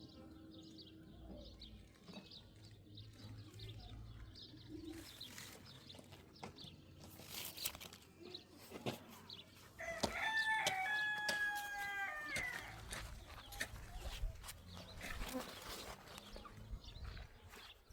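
A rooster crowing once, about ten seconds in: one long call held steady, then falling away. Scattered faint knocks and clicks are heard around it.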